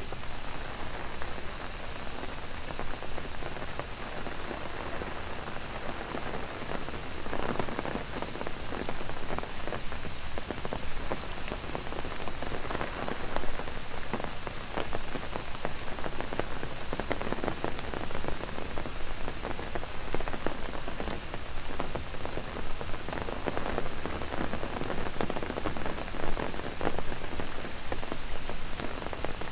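Cicadas droning steadily in one high, unbroken band, over rain pattering on an umbrella and footsteps.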